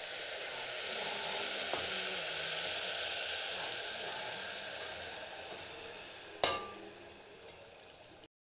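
Water poured into a hot pressure cooker of rice fried in oil, sizzling and hissing loudly, then slowly dying down as the pan cools. A single sharp metal clink about six and a half seconds in.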